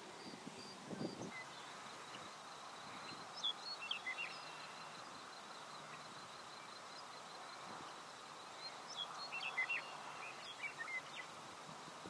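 Western meadowlark singing: two short song phrases of quick sliding notes, one about three seconds in and a longer one about nine seconds in, over a steady outdoor hiss.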